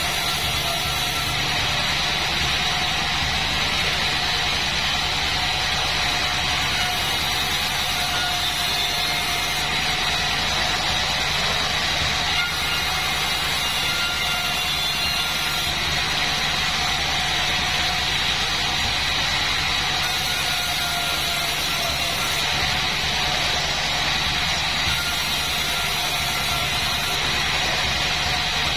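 Band sawmill machine running steadily, with a constant motor hum under a high whine.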